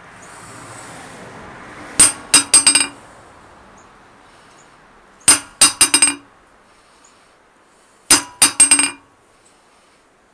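A 28-ounce ball-peen hammer is dropped onto a 55-pound Harbor Freight anvil three times, about three seconds apart. Each drop gives about four ringing bounces that come quicker and quicker, a fairly decent rebound for a cheap anvil.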